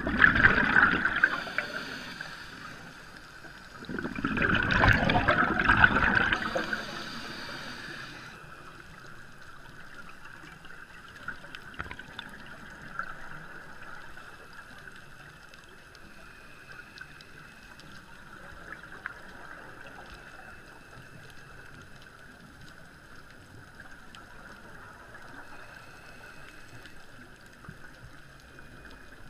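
Scuba diver's regulator exhaling: two loud bubbling rushes, one at the start and one from about four to seven seconds in, then a steady faint underwater hiss.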